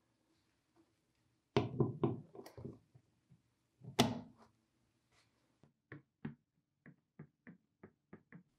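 Knocks and clicks of a restored 1920s metal toilet paper holder as a toilet roll is fitted onto its spring arm: a cluster of knocks, then one sharp click about four seconds in. These are followed by a quick run of short, light clicks, about three a second.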